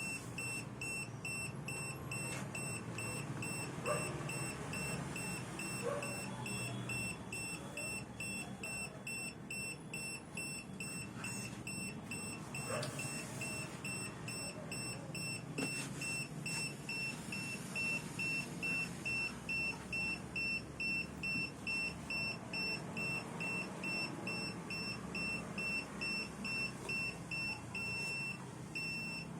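Carbon monoxide meter alarm beeping, a high tone repeating about twice a second: the meter is signalling a high CO reading. A few faint clicks sound now and then beneath it.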